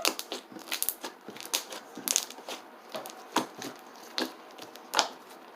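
Slime being pressed and stretched by hand, with irregular crackling clicks and little pops of trapped air; the loudest pop comes about five seconds in.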